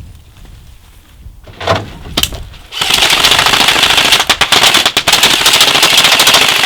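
Airsoft guns firing: two single sharp cracks, then a long, rapid full-auto rattle that starts about three seconds in and keeps going for around four seconds.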